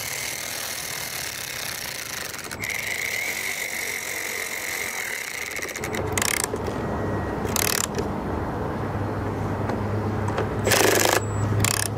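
Cordless screwdriver driving screws into a lawn mower's plastic air filter box: a steady high whine for about six seconds, then several short bursts of the driver. A low steady hum runs under the second half.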